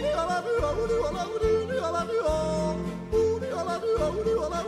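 Alpine yodeling song: a voice yodels a melody with quick jumps in pitch over a bass accompaniment.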